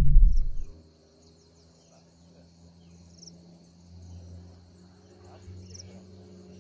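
Insects calling in a steady, high, continuous chorus, with a few brief chirps over it and a faint low hum underneath. A loud low rumble cuts off in the first second.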